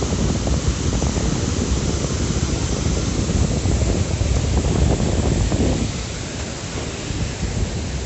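Waterfall rushing: a loud, steady roar of falling water, with a heavy low rumble that eases about six seconds in.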